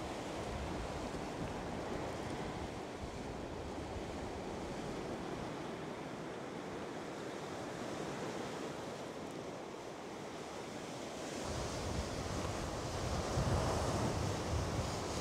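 Lake Ontario waves washing against the rocky shoreline, with wind. Near the end it grows louder, with a low rumble of wind on the microphone.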